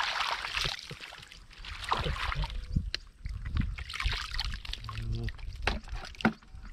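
Muddy water sloshing and trickling in irregular surges as hands and feet work through the mud, with scattered sharp clicks and knocks.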